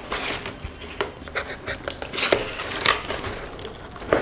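Cardboard packaging inserts being handled and pulled aside in an opened box, with rustling and scraping and several light knocks and taps, the loudest a little past two seconds in.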